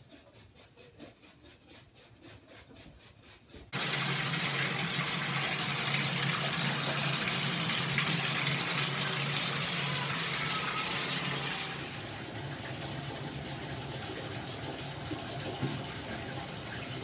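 Rhythmic scrubbing of bathroom tile, about four to five strokes a second. About four seconds in this stops, and a bathtub faucet starts running full, a steady rush of water. Around twelve seconds in the rush drops to a lower level and keeps running.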